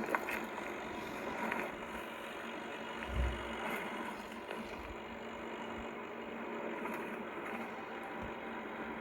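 Cargo truck running with a steady hum, broken by occasional sharp ticks and a few low thumps: the unexplained abnormal noise the owner is recording.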